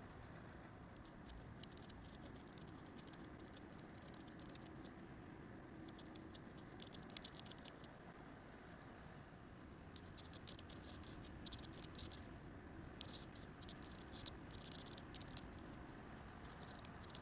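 Faint scratching of a pen nib on paper in short runs of strokes, thickest in the second half, over a low steady hiss.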